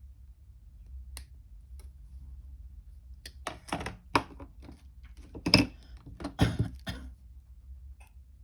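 Irregular small clicks and clacks of metal jewellery hand tools (pliers and wire cutters) being handled and knocked against the work surface, a few faint ones and then a busier run of sharper clacks in the middle.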